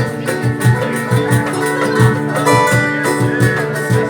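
Instrumental music over a steady low beat, with no singing.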